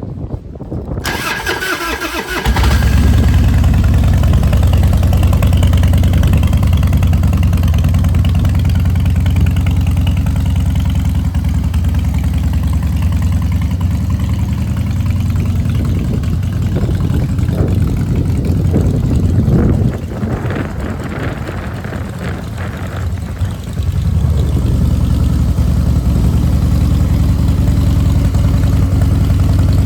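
Harley-Davidson Twin Cam 88 V-twin engine cranked by its starter and catching about two seconds in, then running loud and steady through a Vance & Hines exhaust. Its level drops slightly for a few seconds about twenty seconds in, then comes back up.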